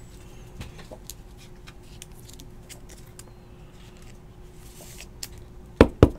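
Light plastic clicking and scraping as a thick trading card is slid into a rigid plastic top loader, ending in a few sharp plastic clacks near the end.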